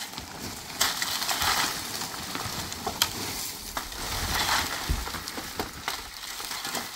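Dry reeds and packed earth of an old roof being broken up with shovels: rustling, crackling and scraping, with louder rustles about a second in and again about four seconds in, and a few sharp knocks.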